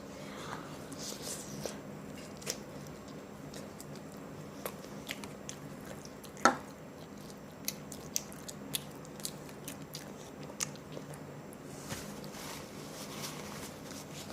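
Close-miked biting and chewing of hot and spicy chicken: wet mouth sounds with scattered sharp crunches and clicks, the loudest about six and a half seconds in.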